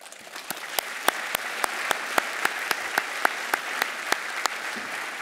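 Audience applauding, with one person's sharp claps close to the microphone at about three a second over the crowd's steady applause. The applause swells in the first second and eases slightly near the end.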